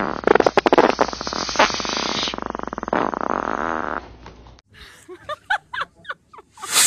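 Rubber balloon's neck buzzing as air rushes through it, a rapid flapping rasp like a long fart that lasts about four seconds and cuts off. Faint short squeaks follow.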